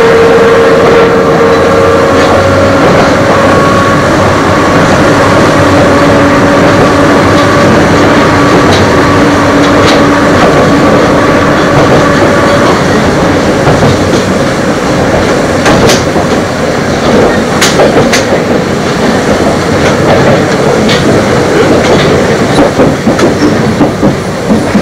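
Eizan Electric Railway train with nose-suspended (tsurikake) traction motors running: a steady motor and gear whine at a few pitches over the rumble of the wheels, which dies away about halfway through. In the second half, sharp clacks of the wheels over rail joints come several times, most thickly near the end.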